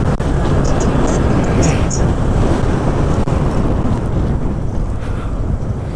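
Wind rumbling on the microphone of a riding Yamaha R15 V3 motorcycle, with its 155 cc single-cylinder engine running steadily underneath.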